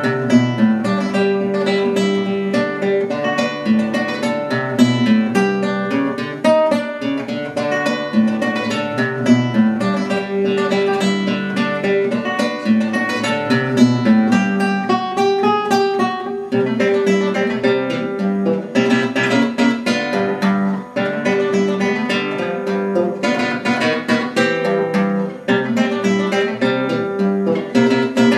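Background acoustic guitar music, with quick plucked notes over lower bass notes.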